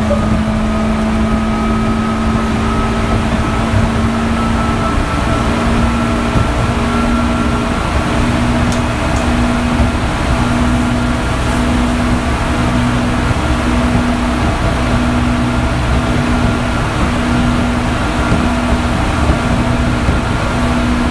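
205 series electric train running at speed. The whine of its external-fan traction motors sits over a steady rumble of wheels on rail. The whine rises slightly over the first several seconds, and from about six seconds in a low hum pulses about once a second.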